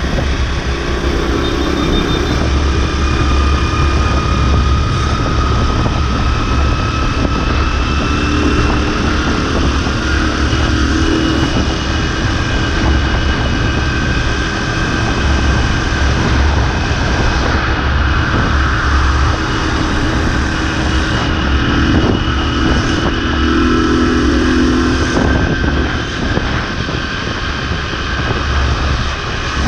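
Motorbike engine running at a steady cruising speed, heard from the rider's seat, its pitch drifting only slightly, over a heavy low rumble of wind on the microphone.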